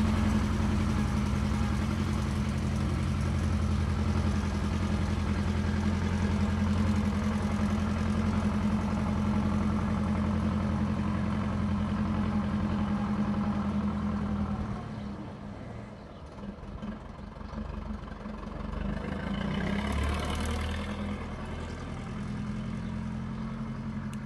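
Zetor 50 Super tractor's diesel engine running steadily as the tractor pulls away, then fading about fifteen seconds in. A brief swell of noise follows near the end.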